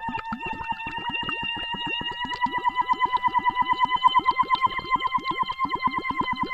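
A woman's voice singing one long high note underwater, slowly rising in pitch and broken into rapid bubbling pulses by the air escaping through the water.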